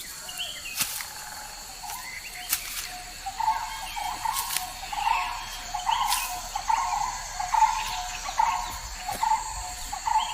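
Forest ambience: a steady high insect drone, with a bird repeating short calls about one and a half times a second from about three seconds in. A few sharp ticks come now and then.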